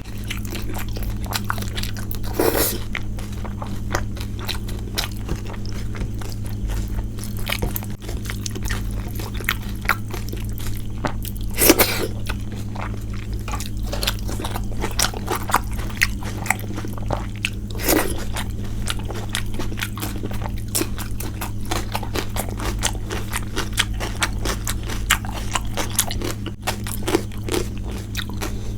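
Close-miked eating of a rice-and-curry meal: continuous wet chewing and smacking, with a few louder sharp crunches spread through it. A steady low hum runs underneath.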